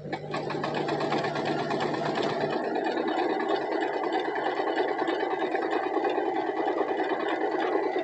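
Singer 2263 electric sewing machine stitching, starting up right at the beginning and then running at a steady speed with fast, even needle strokes.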